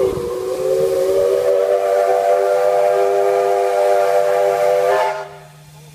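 Steam locomotive whistle blown in one long blast of about five seconds. Its several tones rise slightly in pitch as it opens, then hold steady and cut off.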